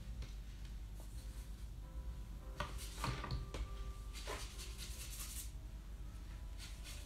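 Broad paintbrush loaded with wet gouache rubbing across paper in several short scratchy strokes, bunched together from a little before halfway to about three-quarters through.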